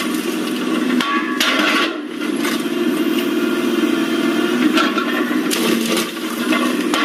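Car body panels and glass crunching and creaking as a heavy steel block is dropped onto a small car and crushes it, in several crashes about a second in, just before two seconds, and again near the five-to-six-second mark. A steady low drone runs underneath.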